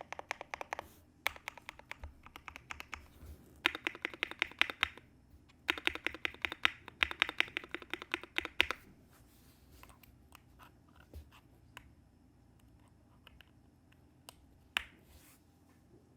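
KBD75 V3.1 mechanical keyboard with lubed Gateron CJ linear switches on an aluminium plate, dampened with plate foam and polyfill, being typed on. Fast runs of keystrokes come in several bursts, then after about nine seconds only scattered single key presses, one louder stroke near the end.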